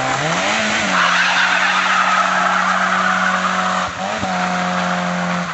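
Renault Clio hatchback's engine revving up over the first second and then held at high, steady revs, with a hiss of tyres skidding on the wet road from about a second in until nearly four seconds. The revs dip briefly about four seconds in and come straight back.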